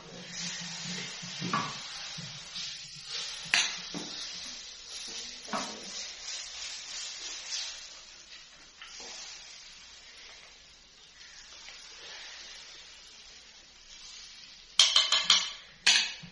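Food sizzling in a metal pan while a spoon stirs and scrapes against it with scattered clinks, the sizzle dying down partway through. Near the end, a few loud clattering metal knocks.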